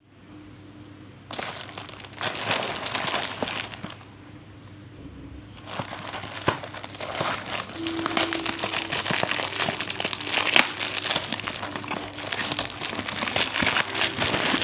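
Candy packaging crinkling as it is handled and opened: a burst of crinkling about a second in, a short lull, then near-continuous crinkling with small clicks from about six seconds in.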